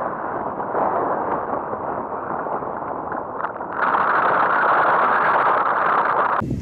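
Wind rushing over the microphone of a camera mounted on a tandem hang glider during its takeoff run, a steady noise that grows louder and brighter about four seconds in and cuts off sharply near the end.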